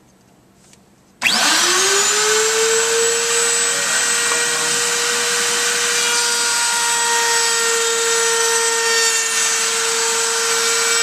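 Table-mounted router with a small roundover bit switched on about a second in. Its whine rises quickly as the motor spins up, then runs as a steady high tone while a board's edge is fed past the bit.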